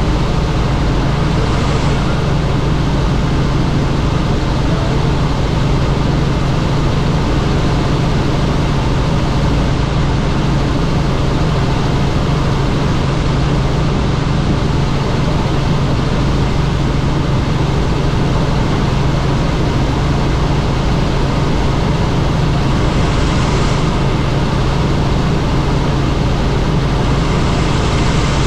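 Helicopter in flight: steady, loud engine and rotor noise with a constant low drone.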